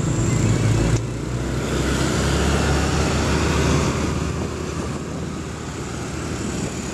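Road traffic heard from a moving motorcycle: the engines of a passing minibus and dump truck run close alongside, over a steady low engine hum and road and wind noise. The level dips slightly about a second in.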